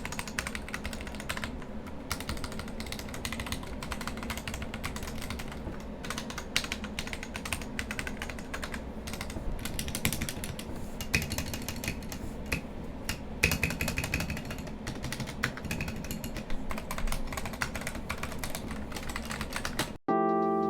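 Fast typing on a Royal Kludge RK100 mechanical keyboard fitted with PBT XDA-profile keycaps: a dense, uneven stream of key clacks. Near the end it cuts off suddenly and music starts.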